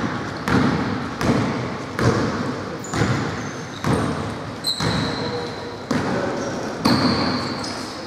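A basketball being dribbled on a wooden gym floor, bouncing about once a second, each bounce echoing in a large hall. A few short high sneaker squeaks sound in between.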